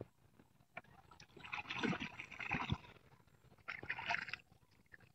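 Water splashing and sloshing against a wooden boat in two bursts, the first longer and carrying a couple of dull knocks.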